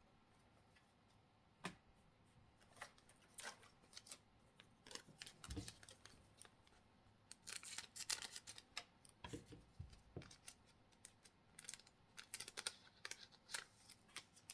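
Pokémon trading cards and booster pack being handled: faint scattered clicks and crinkles of card and foil wrapper, in irregular clusters with a denser run about halfway through.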